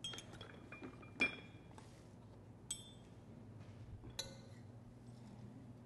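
Metal spoon clinking against a large serving bowl as a corn flour salad is stirred, several separate ringing clinks, the loudest about a second in.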